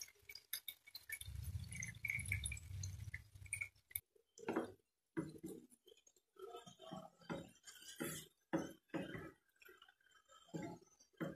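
A creamy liquid pouring into a frying pan of chicken curry. Then a wooden spatula stirs the chicken pieces and vegetables through the sauce, making irregular wet knocks and scrapes against the pan.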